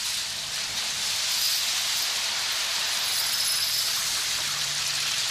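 Steady hiss of spraying water.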